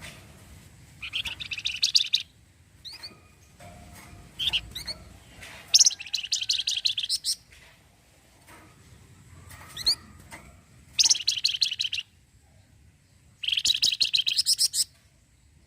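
A flamboyan songbird gives its rapid rattling chatter ('cretet') in four bursts of about a second each. Between the bursts come short rising whistled notes.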